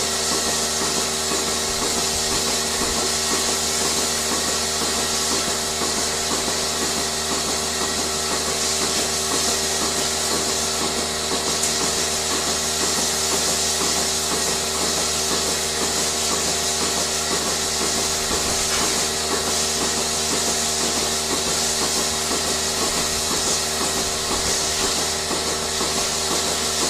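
A steady machine hum with a loud hiss and a fast, even flutter, unchanging throughout and cutting off suddenly at the end.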